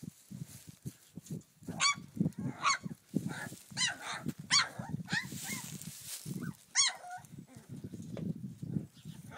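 Blue Heeler puppies, nearly four weeks old, play-fighting: about six short, high-pitched yelps between about two and seven seconds in, over low grunting and scuffling.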